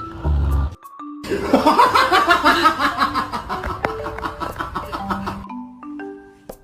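Light, playful mallet-percussion music in the style of a marimba. A loud low thump opens it, and from about a second in to about five and a half seconds in a dense, busy clutter of other sound lies over it.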